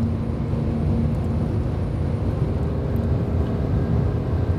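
Car driving on the road, heard from inside the cabin: a steady low rumble of engine and tyre noise with a faint steady hum.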